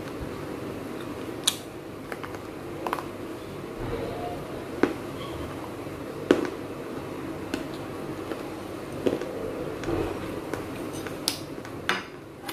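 Pieces of baked clay pot crunching between the teeth as they are chewed: sharp, irregular crunches about once a second, about ten in all.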